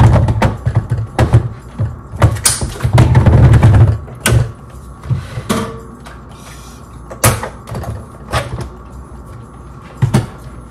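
Plastic blender jar being handled and set on its base: a string of irregular knocks and low thuds, busiest in the first four seconds, then fewer.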